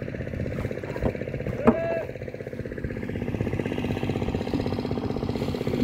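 Small fishing boat's engine running steadily at low revs with a fast, even beat.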